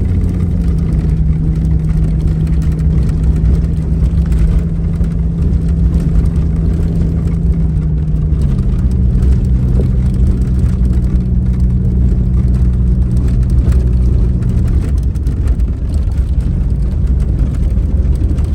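A Jeep's engine, running with no turbo or supercharger boost, pulls along with a heavy low rumble. Its note steps to a new pitch about eight seconds in and again about fifteen seconds in.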